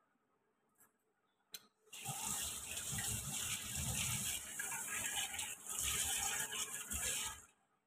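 Water running from a tap into a sink for about five seconds, starting about two seconds in and stopping sharply near the end.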